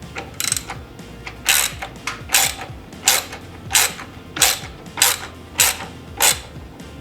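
A socket ratchet clicking in repeated short strokes, about nine swings at a steady pace, as it tightens the muffler bracket-to-frame mounting bolt.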